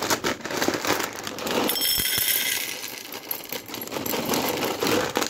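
Dry chickpeas being poured from a plastic packet into a steel bowl: a dense, continuous rattle of many small hard clicks.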